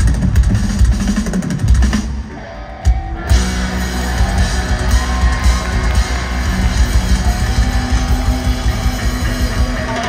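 Rock band playing live at full volume, with distorted electric guitars over a pounding drum kit. The band drops out briefly about two seconds in and crashes back in about a second later.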